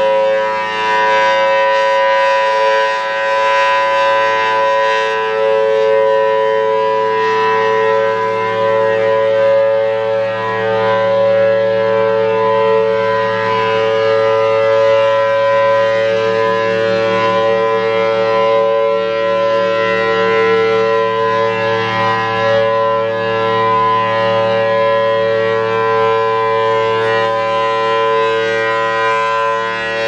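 Federal Signal Thunderbolt 1000T 4/5-port rotating outdoor warning siren sounding its steady full-alert tone, a sustained two-tone chord held at full pitch. Its loudness swells and dips gently as the horn turns.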